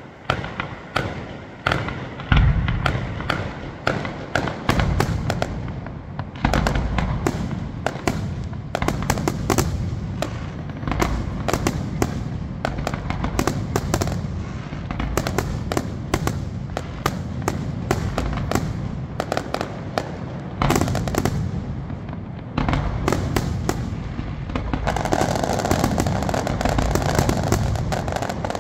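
An aerial fireworks display going off in a dense, continuous barrage: shell bursts bang in rapid succession over a low rumble. Toward the end a thick crackle of stars builds up.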